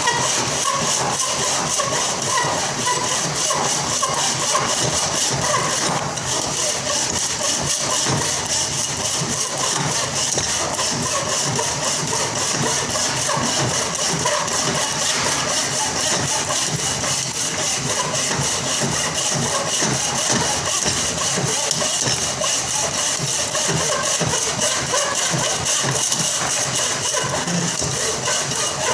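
A motor running steadily, with a fast even pulse and a strong high hiss.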